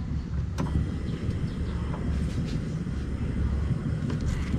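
Steady low rumble of background noise with a faint click about half a second in; the cook puts the noise down to a funeral next door.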